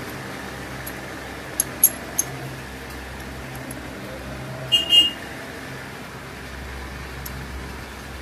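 Small metal parts of a Hero Honda 100 cc motorcycle engine's gearbox being handled and fitted by hand: a few light clicks about two seconds in and a louder metal clink with a short ring around five seconds in, over a steady low hum.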